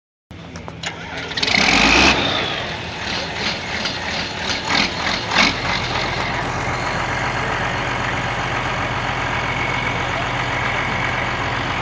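John Deere 4440 tractor's six-cylinder diesel engine running, uneven with some knocks and a louder surge in the first few seconds, then settling into a steady idle about halfway through.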